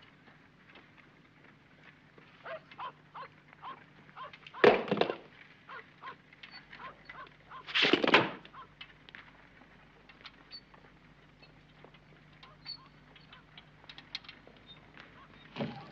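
A single revolver shot, sharp and loud, about five seconds in, followed some three seconds later by a second loud, rougher burst lasting about half a second. Soft footsteps on wooden floorboards tap before and after.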